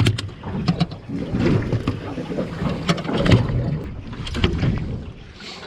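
Irregular knocks and clunks of fishing gear being handled on a small boat, over wind and water noise.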